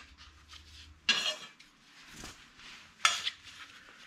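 Metal parts clinking as they are handled on a workbench: two sharp, ringing clinks about two seconds apart, with lighter handling noise between.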